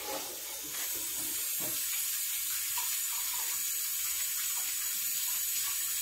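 Kitchen tap running steadily, filling a container set in the sink with water; the rush gets slightly louder about a second in.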